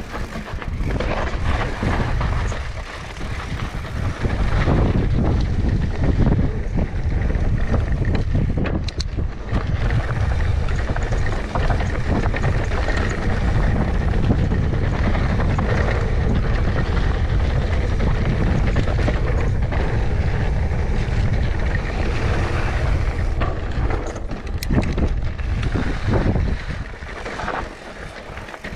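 Mountain bike riding down a steep dirt trail: wind buffeting the action camera's microphone, with tyres rumbling over the ground and scattered knocks and rattles from the bike.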